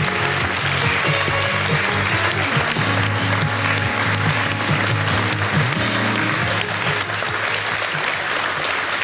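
Studio audience applauding over music; the music fades out about two-thirds of the way through while the clapping carries on.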